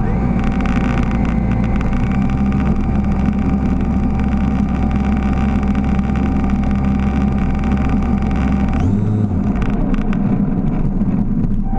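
Electric motor and propeller of a HobbyZone Super Cub RC plane whining steadily as the plane rolls on asphalt, over a heavy low rumble. The motor note rises at the start and cuts off about nine seconds in.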